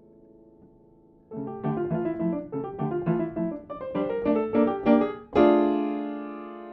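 Upright piano played solo: a held chord dies away, then about a second in a quick passage of separate notes begins, and near five seconds a loud chord is struck and left ringing.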